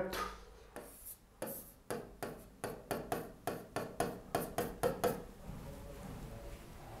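A quick run of about fourteen short scratchy strokes, roughly three a second, like writing, stopping about five seconds in and leaving faint room tone.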